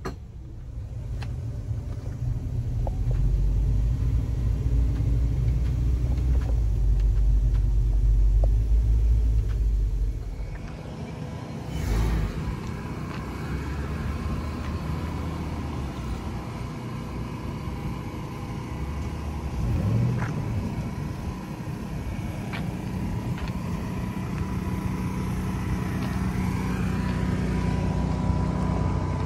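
Car on the move: a steady low rumble of engine and road noise, which eases about ten seconds in and then carries on more evenly.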